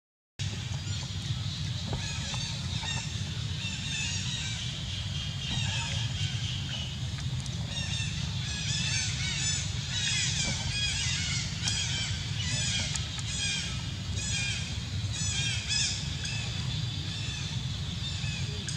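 Birds chirping in quick repeated phrases, busiest in the middle, over a steady low rumble.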